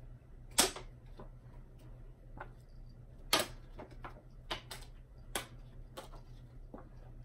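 Thrown playing cards making a series of sharp clicks and slaps as they snap off the hand and strike surfaces. The loudest comes about half a second in and another just past three seconds, with fainter ticks in between.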